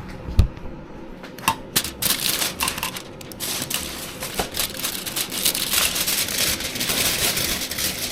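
Lamb chops, sausages and patties sizzling on a barbecue grill, a dense crackle of fine pops and spits that thickens about two seconds in.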